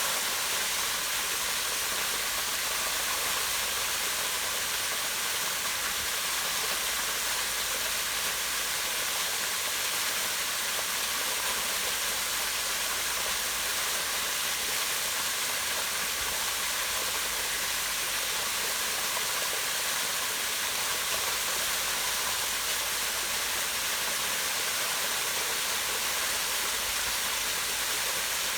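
Waterfall rushing steadily as it pours down over rock into a pond, an even, unbroken hiss of falling water.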